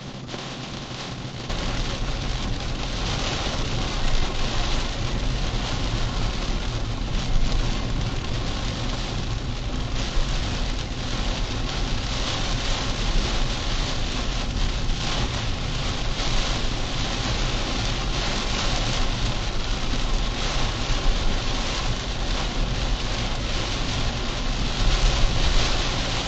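Steady rush of heavy rain and water around a car driving through flooded streets, with a low engine and road rumble underneath. It gets louder about a second and a half in.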